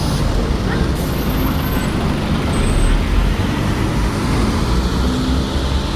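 Road traffic: the steady rumble of a heavy vehicle's engine running, with road noise throughout.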